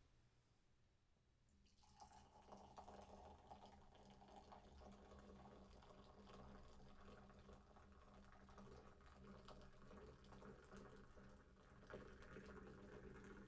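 Carbonated fruit-punch-and-vodka drink poured in a thin stream from a can held high, splashing faintly into a stemmed wine glass. The pour starts about two seconds in and grows a little louder near the end.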